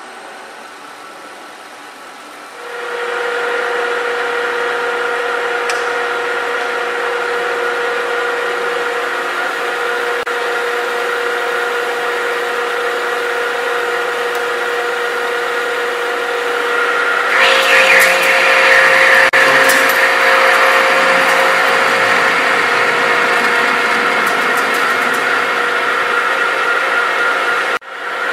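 Knuth Turnado geared-head engine lathe running: a low hum, then from a few seconds in the spindle and headstock gears run with a steady whine of several fixed tones. About two-thirds of the way through it grows louder and harsher as the tool face-turns the steel workpiece.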